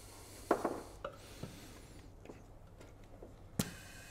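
A few light clicks and knocks of metal fittings being handled, then one sharp click about three and a half seconds in as the compressed-air hose is connected to the adapter in the spark plug hole, just before air is let into the cylinder.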